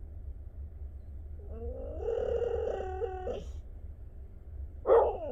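Domestic cat purring steadily, with a long drawn-out meow about two seconds in and a short, loud falling cry near the end. The cat is pestering for attention, wanting to be petted.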